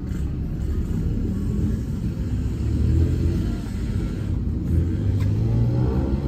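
Steady low rumble of a diesel coach's engine and road noise as the bus travels.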